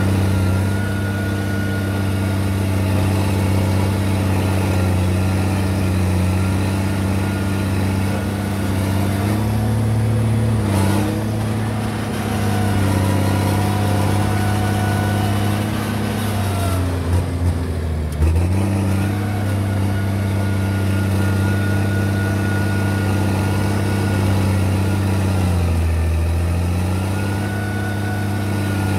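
Komatsu D50A crawler dozer's diesel engine running steadily at working speed, its pitch sagging briefly three times as it takes load while pushing. A few sharp knocks come during the second dip, about two-thirds of the way in.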